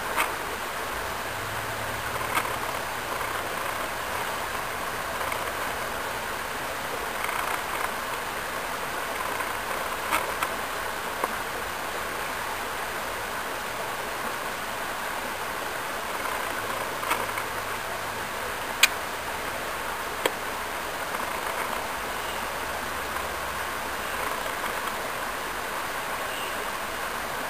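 Steady rush of flowing creek water, with a few sharp clicks here and there.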